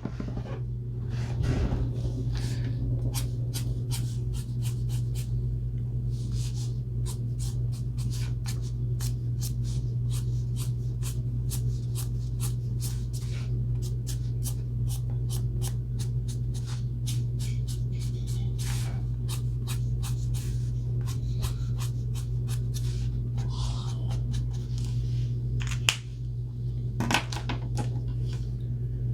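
Ohuhu alcohol marker nib stroking on paper: many quick, short scratching strokes, several a second, over a steady low hum.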